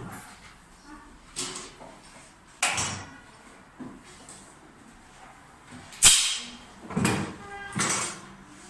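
A series of about five separate knocks and scrapes, each dying away within half a second, the loudest a sharp knock about six seconds in.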